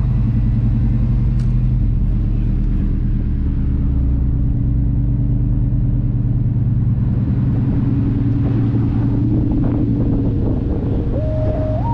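1994 GMC pickup's engine and exhaust running steadily as the truck drives along, a low continuous rumble with road and wind noise, rising slightly in pitch partway through. Near the end a simple electronic tune starts over it.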